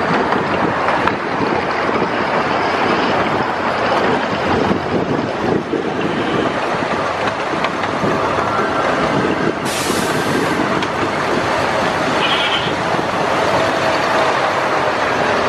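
Miniature train's open passenger cars rolling along the track: steady rattling and clatter of the wheels on the rails. A brief hiss cuts in for about a second, about ten seconds in.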